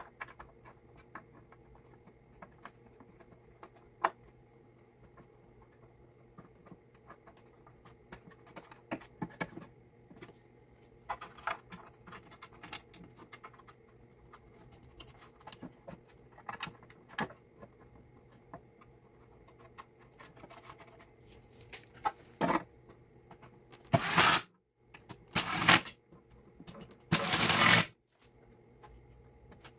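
Faint clicks and scrapes of 10 mm bolts and the plastic front fender being fitted by hand, then three short bursts of an impact wrench driving the fender bolts in near the end.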